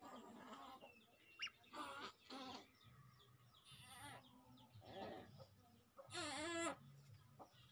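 Faint, scattered poultry calls: a few short calls and a brief high chirp, then one longer wavering call about six seconds in, the loudest of them.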